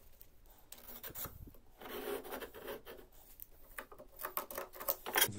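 Steel plate sliding and scraping against a steel angle bracket as gloved hands position it on a metal bench, with light metal knocks and a sharp click near the end.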